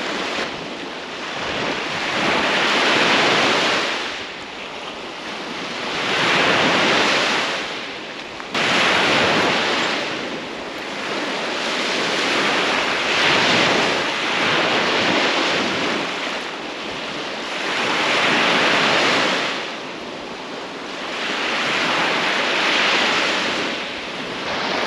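Small lake waves washing onto a sandy beach, the wash swelling and fading every four to five seconds.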